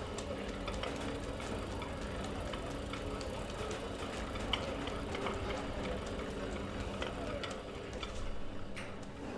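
Foley sound effects: a steady mechanical hum with many small clicks and ticks scattered through it.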